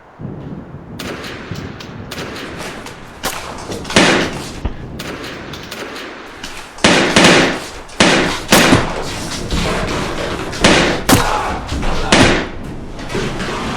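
A series of loud bangs and thuds over a continuous rough noise. The heaviest hits come in a run from about seven to twelve seconds in.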